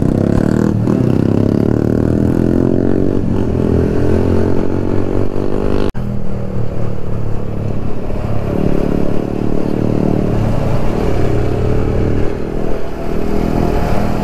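Motorcycle engine heard from on board while riding. In the first half it climbs in pitch and drops back at each gear change as the bike pulls away. A sudden brief dropout comes about six seconds in, and after it the engine runs on more evenly.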